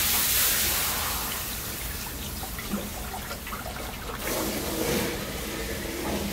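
Fresh cream poured from two cartons into a hot wok, hissing and sizzling as it hits the hot metal. The hiss starts suddenly, eases off, then swells again about four seconds in.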